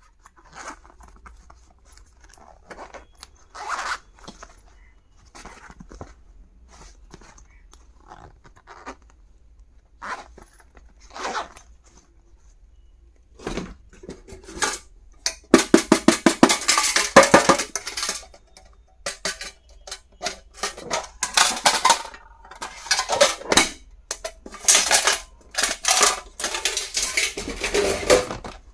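Packaging being handled and torn open by hand: scattered light rustles and taps at first, then about halfway through long runs of rapid, loud crinkling and ripping.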